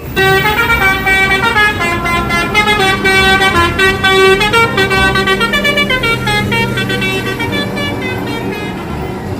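Bus telolet horn (a Basuri multi-tone air horn) playing a quick tune of stepped notes.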